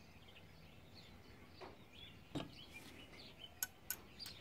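Quiet background with faint bird chirps, and a light knock followed by two sharp clicks in the second half.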